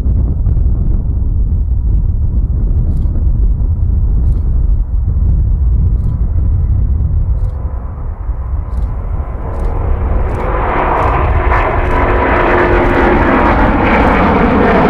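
Airbus A350 jet engines at takeoff thrust: a low rumble with wind on the microphone, swelling into a loud roar about two-thirds of the way through as the airliner rolls past and lifts off.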